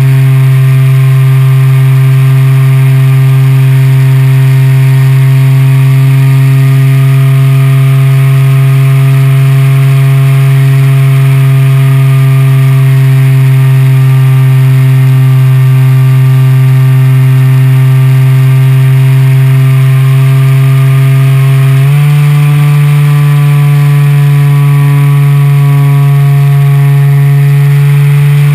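Parkzone Extra 300 RC plane's electric motor and propeller heard from the camera on board, a loud steady drone that steps up slightly in pitch about 22 seconds in as the throttle is raised.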